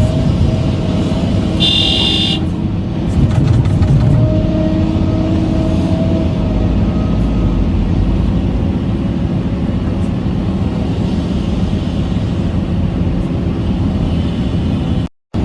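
Heavy-machinery engine running steadily, with a short high-pitched beep about two seconds in.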